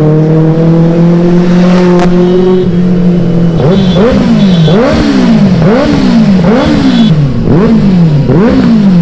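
Benelli 600i's four-cylinder engine revved with the bike standing: held at a steady rev that slowly climbs, then from about three and a half seconds in blipped repeatedly, about once a second, each rev shooting up and falling away.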